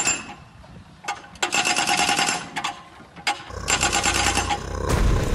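Excavator's compaction attachment hammering the ground in rapid stop-start runs of rattling, with a low rumble joining about three and a half seconds in.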